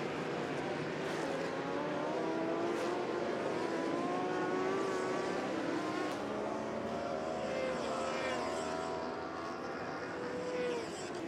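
Racing motorcycle engines at high revs, several pitches sliding up and down at once as bikes pass.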